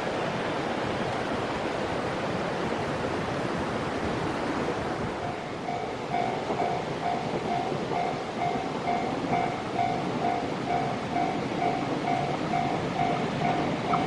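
Freight train running past with a steady rush of wheel and rail noise. About six seconds in, a railway level-crossing alarm bell starts ringing, about two dings a second.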